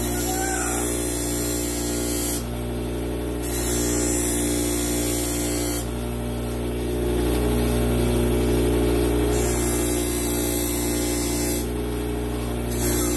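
Electric bench grinder running steadily, with a high grinding hiss each time the machete's steel edge is pressed to the spinning wheel. The hiss comes in several passes with short breaks while the edge is cleaned up and polished.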